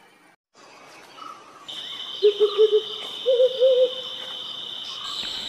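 Mottled wood owl hooting: a quick run of four low hoots, then three slightly higher ones. A steady high insect trill, as from crickets, starts just under two seconds in and runs under the hoots.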